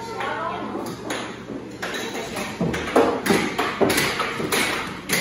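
Irregular sharp knocks and taps, thickest around the middle of the stretch, with faint voices in the background.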